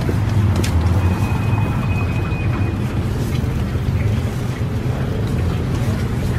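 Steady low engine-like rumble, with a metal spatula scraping and clicking against a steel street-food griddle now and then. A brief thin high whine sounds about a second in.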